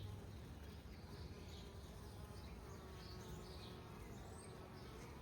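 Honeybees humming faintly and steadily around an opened hive.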